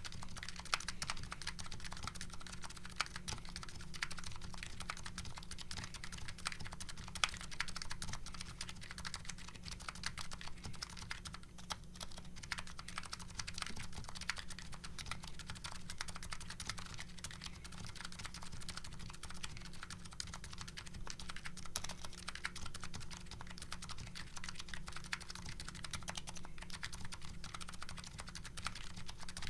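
Continuous, fast typing on a Nuxros Kraze custom keyboard with MetaKeebs MetaPulse electrocapacitive switches and CRP R5 keycaps: a dense, even stream of key clicks and bottom-outs.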